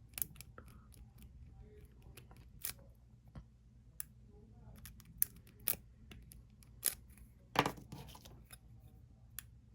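Single-pin lock pick and tension bar working the pin cylinder of a Master padlock: irregular small metallic clicks and ticks, a few sharper ones a little over halfway through.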